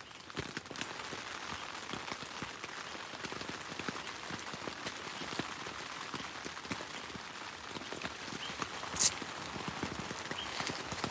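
Rustling and scratching of fabric and shoes as socks and velcro-strapped sneakers are pulled on, a fine crackle of many small ticks, with one brief sharp rasp about nine seconds in.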